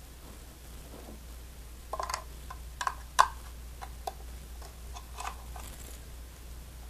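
Irregular clicks and knocks of RCA cable plugs being handled and pushed into the jacks of a game capture card, with the sharpest click about three seconds in.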